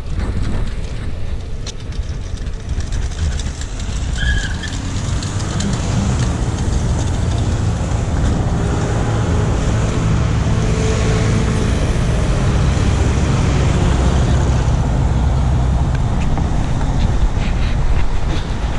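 Outdoor city ambience with a steady low rumble of road traffic, building up a few seconds in and then holding.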